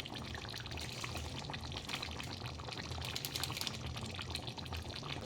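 Thick chicken curry bubbling and simmering in the pan, a steady run of small crackles and pops as the gravy cooks down.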